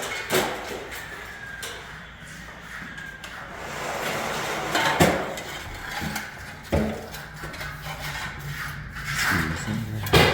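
Scattered knocks and scraping, a few sharp thuds among rough rubbing noise, over a faint steady low hum.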